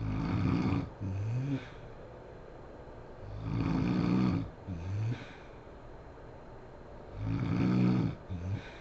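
A sleeping woman snoring heavily: three loud, rough snores about three and a half seconds apart, each followed by a shorter, quieter breath sound that rises in pitch.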